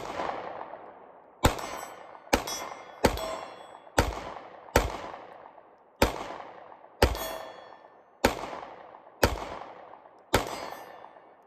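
Smith & Wesson Shield Plus pistol fired about eleven times at an uneven pace of roughly one shot a second, each shot followed by a long fading echo.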